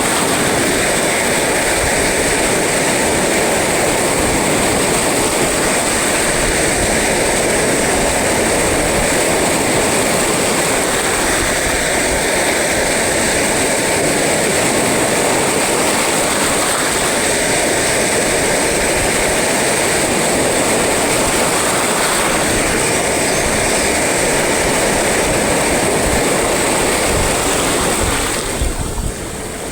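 Steady roar of rough sea surf, with the wash of waves swelling every few seconds. It briefly drops in level near the end.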